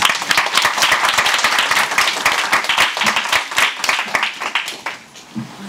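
Audience applauding, dense clapping that thins out and dies away about five seconds in.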